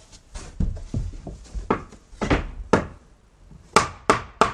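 Blows struck on the wooden frame timber of a greenhouse, knocking a joint into place: about eight knocks at an irregular pace, the last few the hardest.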